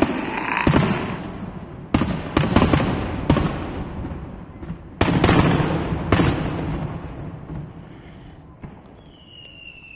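Aerial fireworks display: about eight shell bursts go off as sharp booms, each trailing a rolling echo, most of them in the first six seconds before the noise dies down. Near the end a thin whistle begins, falling slowly in pitch.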